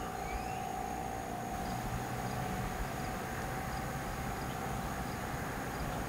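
Steady outdoor background noise with a continuous distant drone held at one pitch, and faint high ticks about every 0.7 seconds from near the two-second mark.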